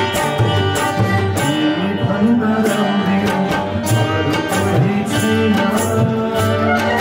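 Live Nepali song rehearsal: a man singing over harmonium, acoustic guitars, bansuri flute and sarangi, with percussion keeping a steady beat.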